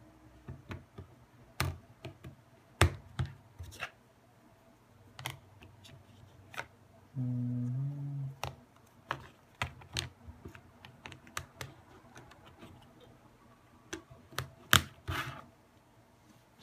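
Sharp plastic clicks and snaps of a BlackBerry's back cover and battery being pried off and refitted: a battery pull to reset a phone that will not power on. The loudest snaps come about three seconds in and near the end.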